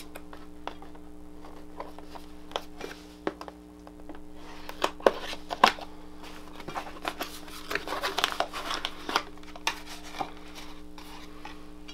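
A cardboard box being cut open with a knife and unpacked: scattered clicks, scrapes and cardboard handling, then plastic bag packaging crinkling about eight seconds in. A steady low hum sits underneath.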